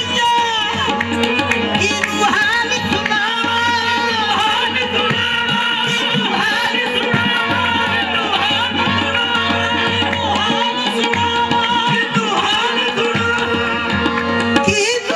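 Live qawwali music: a voice sings long, gliding melodic lines over a steady held drone, with tabla drumming throughout.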